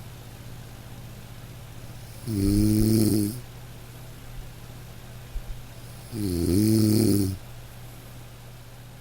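Nasal snoring: two snores about four seconds apart, each lasting about a second, over a steady low hum.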